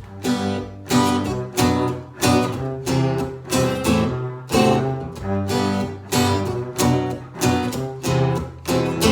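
Guitar strummed in a steady rhythm, chords ringing on each stroke: the instrumental intro of a song.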